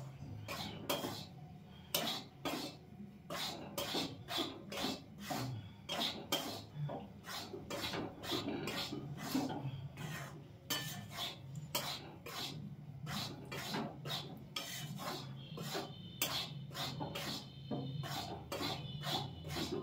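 Metal spatula scraping and pushing dry wheat flour around a steel kadai as it is dry-roasted, in repeated strokes about two a second. A low steady hum runs underneath.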